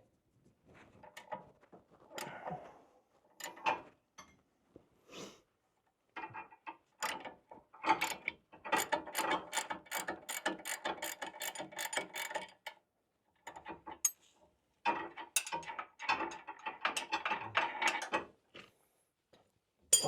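Ratchet wrench clicking in quick runs as a suspension nut is spun off. The nut is the sway bar end link nut: a few scattered clicks at first, then two long runs of rapid clicking.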